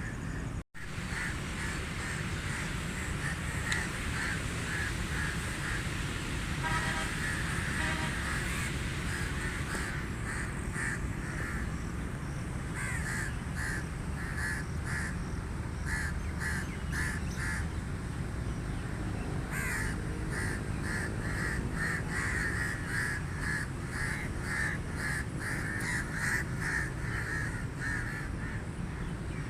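Crows cawing over and over, in quick runs of short harsh caws that crowd together in the second half, over a steady low rumble. The sound cuts out for a moment about a second in.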